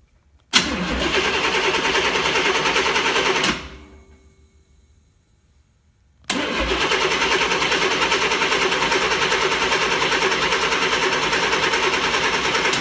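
1958 Chevrolet Apache pickup's engine cranking on the starter motor twice, about three seconds and then about six seconds, each stopping abruptly. The engine does not fire.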